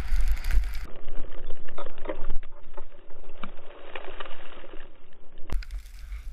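Wind rumbling on a head-mounted camera's microphone as a skier rides through powder, with scattered knocks and scrapes of skis and poles in the snow.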